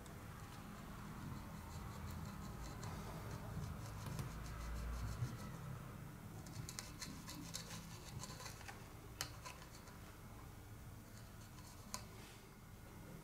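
Copper desoldering braid pressed and drawn over solder pads under a soldering iron tip: faint scratching and crackling, busiest from about six to nine seconds in, with a few sharp ticks. A low hum runs underneath for the first five seconds or so.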